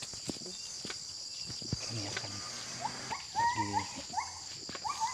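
Steady high-pitched drone of insects in the plantation. Over it come short rising yelps, several in quick succession from about three seconds in.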